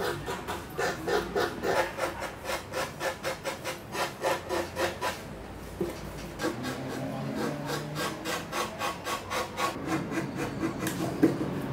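Hand-sanding the edge of a wooden toy panel: rapid back-and-forth rubbing strokes, about three a second, with a short pause around the middle.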